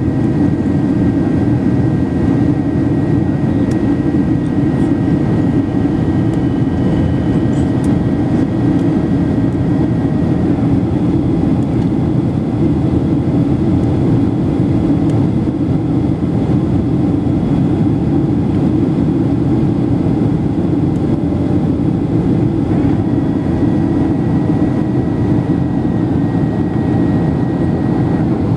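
Steady engine and airflow noise heard inside a passenger plane's cabin in flight, low and even, with faint steady whining tones above it.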